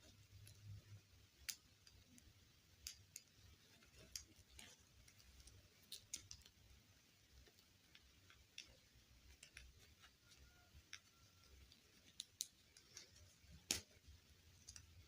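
Faint, scattered clicks and light taps of small plastic pieces being handled, with a sharper click near the end.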